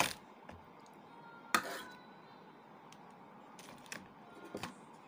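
Tableware handled while eating: a spoon, a plastic container and a bowl give a few sharp clicks and knocks, the loudest about a second and a half in.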